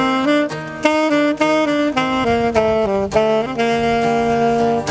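Saxophone playing a jazzy melody in a run of short notes, then settling on one long held note near the end.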